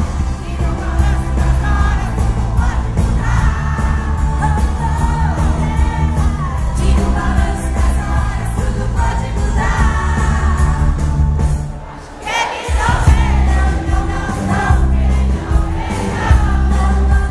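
Live 1980s Brazilian pop-rock: a female lead singer with a full band of electric guitar, keyboards, bass and drums, recorded from the audience with crowd noise underneath. The band thins out briefly about twelve seconds in, then comes back in full.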